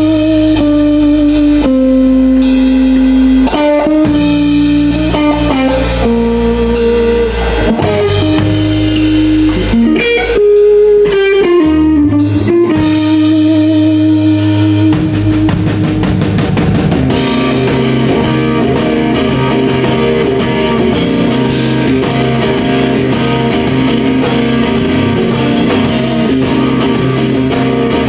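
Live electric blues-rock instrumental: a Stratocaster-style electric guitar plays long sustained lead notes with string bends over drums, and about 17 seconds in the band settles into a dense, steady driving beat.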